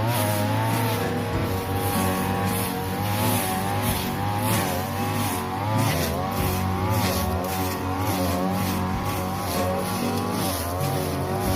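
A 42cc two-stroke brush cutter running at high revs, its pitch repeatedly dipping and recovering as the blade bites into thick grass, with short hissing swishes from the cutting.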